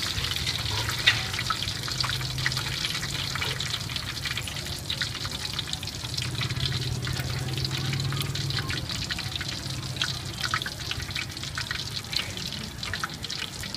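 Hot oil sizzling with many small crackles, from shrimp-and-batter fritters deep-frying, over a low steady hum.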